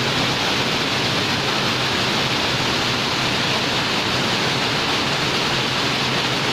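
Loud, steady rush of rainwater pouring and flowing into a flooded floor of a building during heavy rain.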